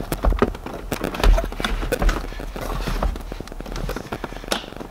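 Irregular rapid clicking and knocking of metal parts as the accelerator rod is worked into the arm of an aluminum aftermarket gas pedal.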